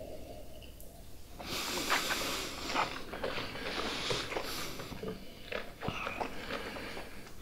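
Two people tasting whisky from nosing glasses: quiet sips, breaths and mouth noises as they hold the spirit on the tongue, starting about a second and a half in, with a few small clicks.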